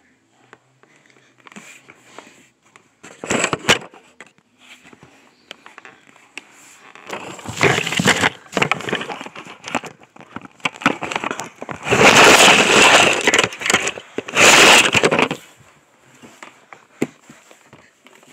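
Handling noise: bursts of scraping and rustling from the phone being moved and rubbed against things, loudest about twelve to fifteen seconds in.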